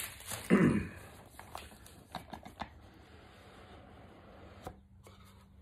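Handling a small rigid cardboard gift box: a short sliding scrape about half a second in, then scattered light taps and clicks of fingers and cardboard.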